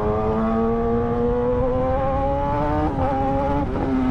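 Kawasaki ZX-10R's inline-four engine and exhaust pulling under acceleration, its pitch climbing steadily, with short breaks about three seconds in and again shortly after.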